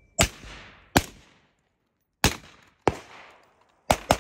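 Six gunshots from a carbine and then a handgun, each trailing off in an echo. The first four are spaced about half a second to a second apart, and the last two come close together near the end.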